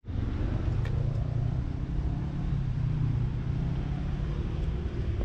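Steady low rumble of outdoor background noise, with a faint click about a second in.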